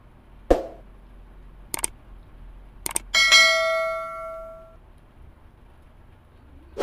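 Subscribe-button sound effect: a few short clicks, then a notification bell dings once and rings out for about a second and a half.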